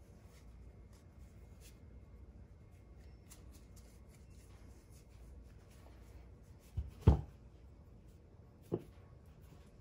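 Soft handling of a steel hydraulic cylinder part in gloved hands, then a sharp double knock about seven seconds in and a lighter knock near the end as the heavy part is set down and shifted on the towel-covered workbench.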